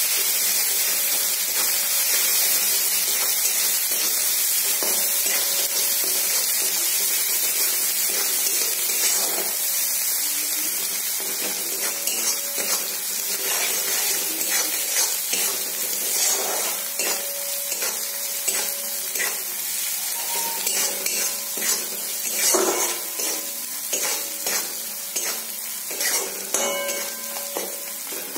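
Chopped onion, garlic and spice pastes sizzling in hot oil in a metal kadai while a spatula stirs them: the masala being sautéed. A steady sizzle, with the spatula's scrapes and knocks on the pan standing out more from about halfway.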